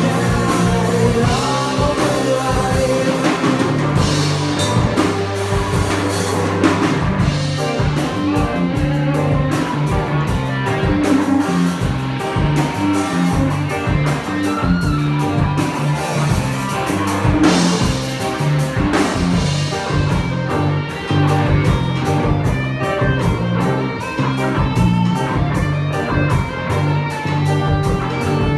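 Rock song with electric guitar, drum kit and a singing voice, a steady beat.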